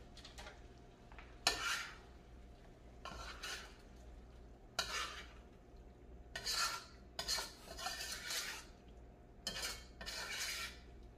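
A spoon stirring chunks of curried conch in a stainless steel pot, in several separate scraping strokes. A couple of them start with a sharp clink of the spoon against the pot, the first about a second and a half in.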